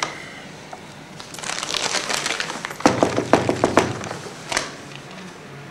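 Paper carry bag rustling and crinkling as it is handled, with a run of sharp crackles about three seconds in.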